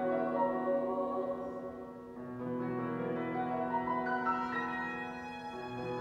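Choir singing a classical choral piece with piano, violin and cello accompaniment. The music eases briefly about two seconds in, then higher notes come in.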